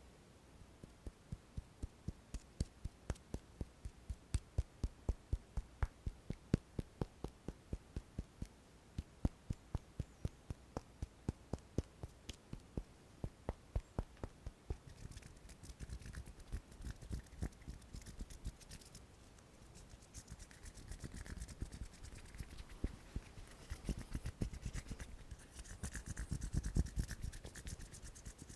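Hands making ASMR sounds: soft, even taps at about three a second for roughly the first half, then continuous rubbing and scratching.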